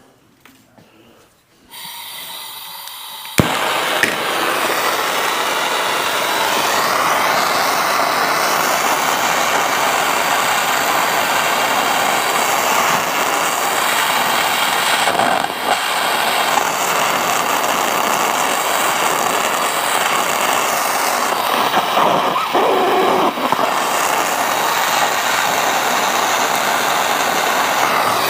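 Soldering torch: gas hisses for a moment, then lights with a sharp pop about three seconds in and burns with a steady rushing flame noise, heating a steel buckle before hard solder is added.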